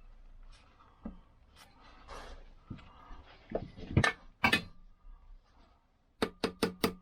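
Hammer tapping the edges of a Lambretta Li125 clutch to check that it is seated and lined up on its splines: a few light clinks, two sharp knocks about four seconds in, then from about six seconds a quick run of ringing metal taps, about five a second.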